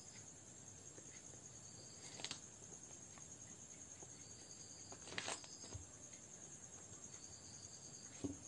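Faint pen scratching and tapping on paper as numbers are written, with brief louder strokes about two and five seconds in, over a steady high-pitched whine.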